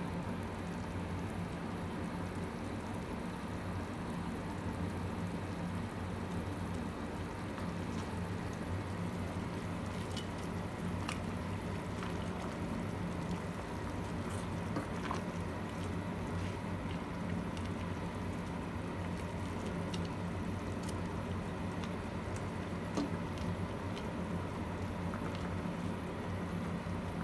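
A pot of noodle soup boiling on the stove: a steady bubbling hiss with scattered small pops, over a steady low hum.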